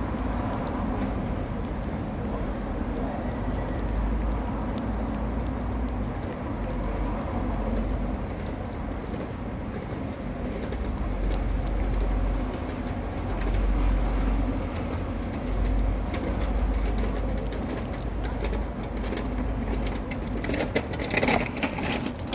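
Steady low outdoor street rumble, with a few louder sharp clatters near the end.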